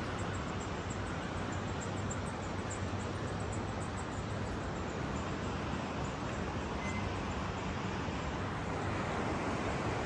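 Steady rushing wind noise over the microphone on an open, high suspension bridge, with no change in level.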